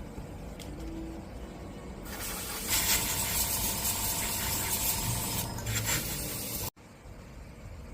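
Paint being sprayed: a loud steady hiss starts about two seconds in and runs for about four and a half seconds before cutting off suddenly, over a low steady hum.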